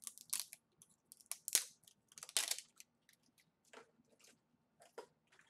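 Thin plastic packaging crinkling and tearing as small slime tubs are unwrapped by hand: an irregular run of crackles, loudest in the first half and lighter toward the end.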